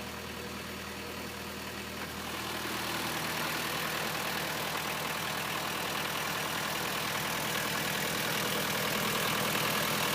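Diesel engine of a 2019 Wacker Neuson EZ53 mini excavator idling steadily. About two seconds in it grows louder and brighter, then holds.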